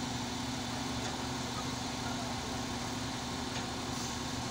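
Diesel engine of a KATO truck-mounted crane running steadily, with a constant low hum.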